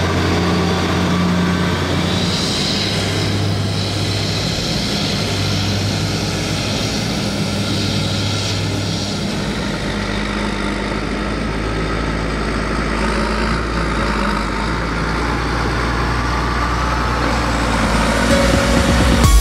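CLAAS Jaguar 980 self-propelled forage harvester running on its twin Mercedes-Benz six-cylinder diesels, a steady engine note. About ten seconds in it gives way to the deeper, lower note of a Case IH Magnum tractor pulling a loaded silage trailer across the stubble.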